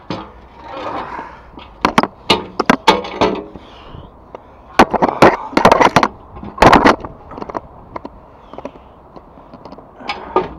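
A rusty steel barrier section clanking and scraping against concrete as it is handled and moved, in several bursts of sharp metallic knocks.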